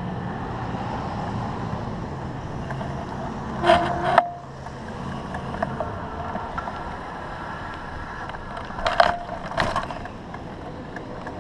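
Electric utility bicycle riding over asphalt, heard from its handlebars: a steady rumble of tyres and wind, with a low hum through the first half. Two short bursts of clattering rattles come about four seconds in and again around nine seconds in.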